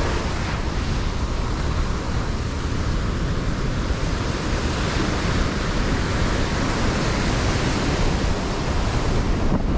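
Ocean surf breaking and washing up the beach, with wind rumbling on the microphone.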